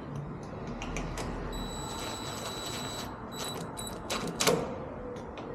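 Light clicking and tapping of small metal door hardware as a flush bolt is worked into place in the door edge, with a sharper cluster of clicks about four and a half seconds in. A faint high steady whine sounds for a second or so near the middle.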